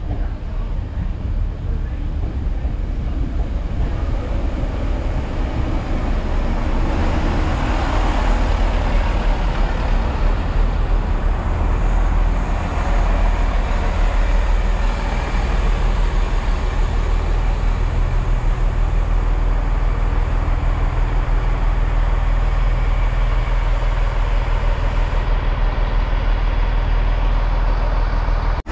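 Class 166 diesel multiple unit running into the platform. Its diesel engines and wheels on the rails grow louder over the first several seconds, then settle into a steady deep diesel drone as it draws alongside.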